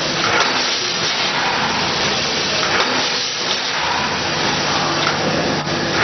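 Packaging machinery running: a steady loud hiss with a faint low hum underneath.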